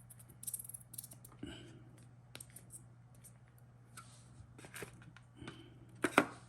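Small clicks, creaks and rustles from hands handling a two-part JB Weld epoxy tube and its packaging. The sharpest clicks come about six seconds in, over a faint steady low hum.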